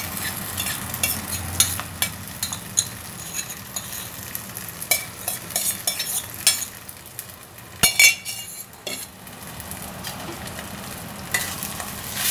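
Metal spoon scraping and clicking against a steel pan as soaked sago pearls are tipped in and stirred through fried onions, over a steady sizzle of frying. One sharper clack comes about eight seconds in.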